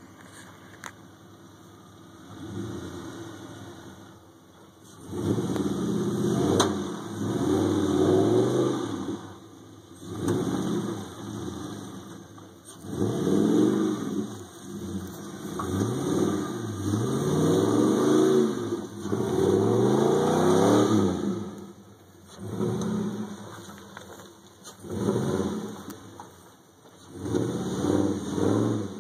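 GMC 2500HD pickup's 6.0-litre Vortec V8 revving in repeated surges as the lifted truck pushes through mud, its pitch rising and falling every couple of seconds. The engine is faint at first, and the surges begin a few seconds in.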